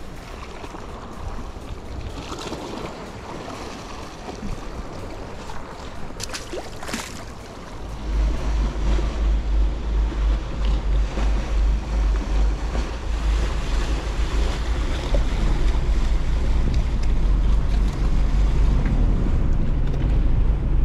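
Sea washing against the rocks, then about eight seconds in a boat engine comes in with a steady low rumble as a fishing ferry approaches and pulls up to the rock, with wind buffeting the microphone.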